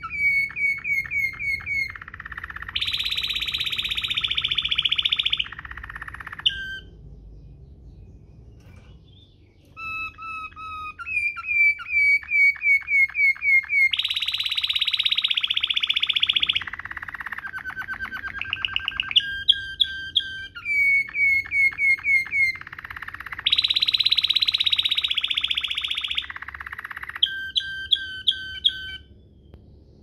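Domestic canary singing a rolling (ngerol) song in the Waterslager style: runs of quick repeated notes alternating with three long, even buzzing rolls, with a pause of a few seconds about a third of the way in.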